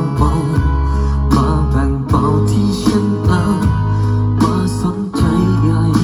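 Bose Home Speaker 500 playing acoustic guitar music with a deep bass line, the low notes changing about once a second.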